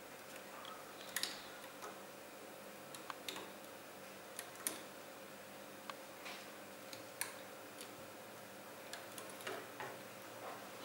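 Light, irregular clicks and taps of a plastic hook tool and rubber bands against the clear plastic pegs of a Rainbow Loom as bands are hooked off and looped forward.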